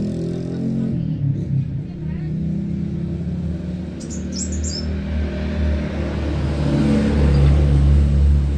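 A motor vehicle's engine rumbling steadily, growing louder near the end as it comes closer. A small bird gives one short, high chirping phrase about four seconds in.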